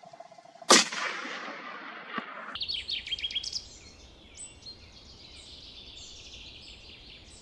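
A single gunshot about a second in, the loudest sound, with a fading echo. Then a quick run of high bird chirps, and bird calls go on faintly.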